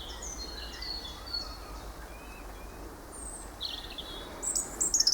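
Small songbirds singing: short high chirps and whistles throughout, with a busier, louder run of trills near the end, over a low steady rumble.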